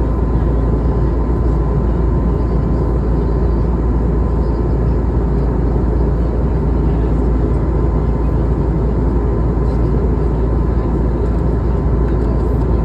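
Steady cabin noise of an Airbus A320neo in flight: an even rush of engine and airflow noise, heavy in the low end, with a faint steady hum above it.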